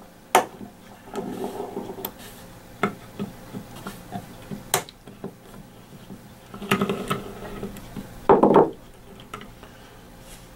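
Small metallic clicks and rubbing as grip screws are turned out with an Allen key and a wooden grip panel is lifted off a Ruger Mark IV pistol frame. The handling is loudest twice, near the three-quarter mark.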